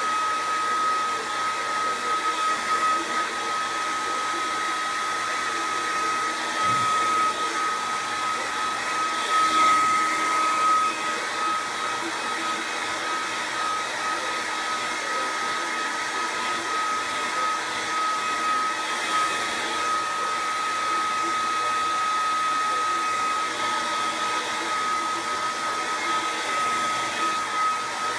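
Hair dryer running steadily: a constant rushing blow with a steady high-pitched whine.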